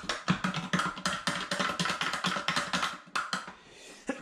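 Fresh cilantro being torn from its stems by hand: a rapid run of crisp rustling and snapping that eases off about three seconds in.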